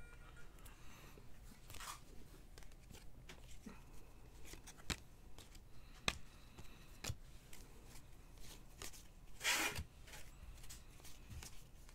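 Faint rustling and clicking of a stack of football trading cards being slid and flipped through by hand, with a louder swish of card against card near the end.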